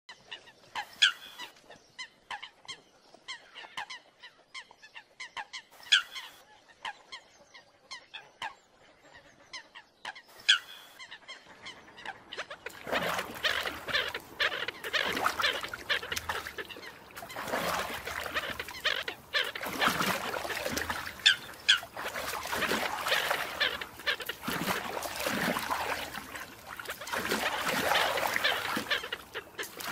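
American coots giving fighting calls: scattered sharp honking calls, a few of them loud, then from about twelve seconds in a dense, continuous clamour of many overlapping calls.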